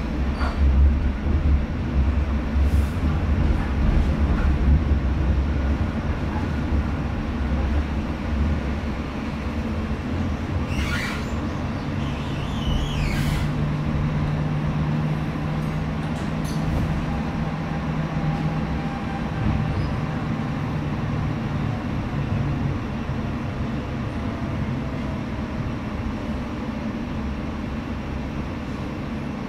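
Sheffield Supertram running along street track, heard from inside the passenger car: a low rumble that is heaviest in the first several seconds, then a steady motor hum through the middle. A brief high squeal rises and falls about eleven seconds in.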